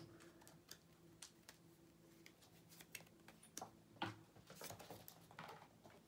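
Near silence: room tone with a faint low hum and scattered light clicks, with a slightly louder tap about four seconds in followed by a soft rustle.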